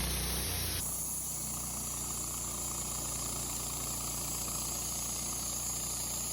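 Wood-Mizer LT15 sawmill's engine running steadily, with an abrupt change in its sound about a second in.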